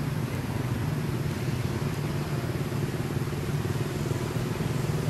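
A motor vehicle engine running steadily with a low hum.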